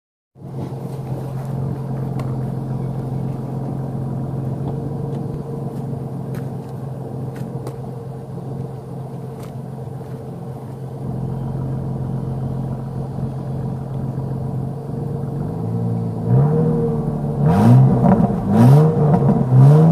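1999 Ford Mustang's 3.8-litre V6 through its stock exhaust, idling steadily, then revved in several quick blips near the end.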